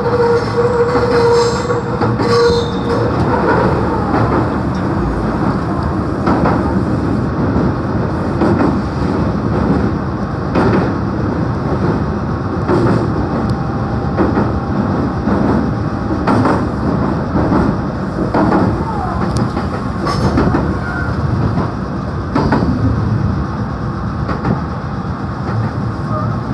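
Meitetsu 3500 series electric train running at speed, heard from inside the car: a steady rumble with repeated clatter of the wheels over rail joints as it crosses a steel truss river bridge. A steady high whine is heard for the first two seconds or so, then fades.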